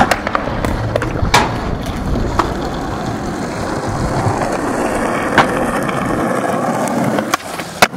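Skateboard wheels rolling steadily over rough pavement, with a handful of sharp clacks from the board scattered through.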